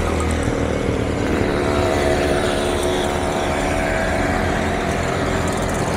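Small motorcycle and scooter engines running steadily as they ride past.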